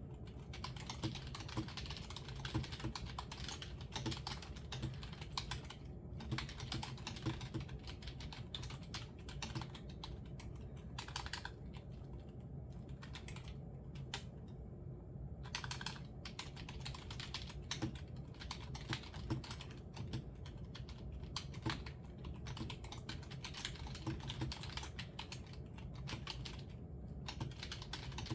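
Typing on a computer keyboard: quick runs of keystrokes with a few short pauses, over a low steady hum.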